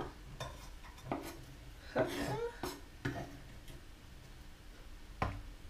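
Kitchen knife knocking and scraping on a wooden cutting board: a handful of scattered short knocks, the loudest near the end.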